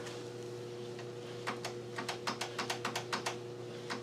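Faint steady electrical hum, then from about a second and a half in a quick, irregular run of light clicks.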